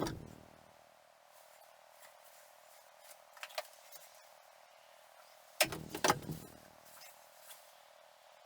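Knocks and clatters of hand building work: a sharp knock at the start, a couple of faint clicks a few seconds in, then a louder cluster of knocks and rattles a little past halfway.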